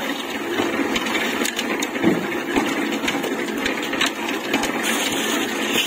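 Half-bag mini tilting-drum concrete mixer with a 2 HP single-phase electric motor, running steadily with its drum turning, while a pan of mix is tipped into the drum about four seconds in.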